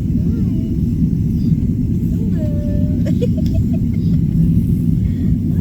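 A loud, steady low rumble, with short high voice-like sounds about a third of a second in and again about two and a half seconds in.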